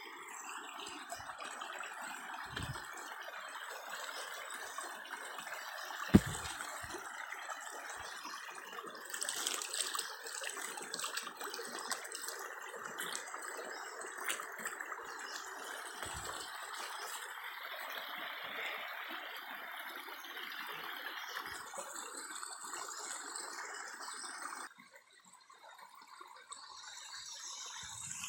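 Shallow stream water rushing and trickling over rocks, a steady rush. It falls away abruptly about 25 seconds in and comes back softer near the end. A single sharp knock sounds about six seconds in.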